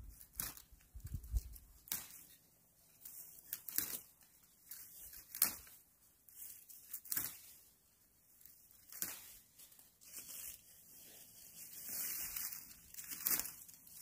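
Dry pine twigs and brush snapping and crunching as they are broken and pulled away by hand, in irregular sharp cracks every second or two.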